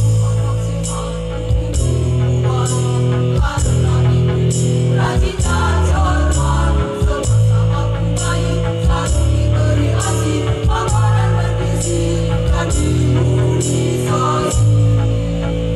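Women's choir singing through microphones over amplified music with a sustained bass and held chords and a steady beat.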